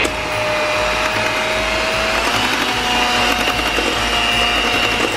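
Electric hand mixer running steadily with its beaters in sugar cookie dough, a continuous motor whine that steps slightly higher in pitch about two seconds in.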